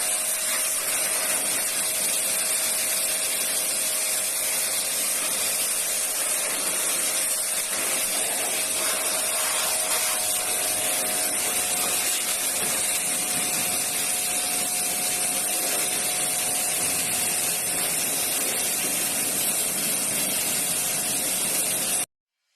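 Electric high-pressure washer (Semprox 1280 W, 80 bar) running with its jet spraying: a loud, steady hiss over a steady motor hum. It stops suddenly near the end.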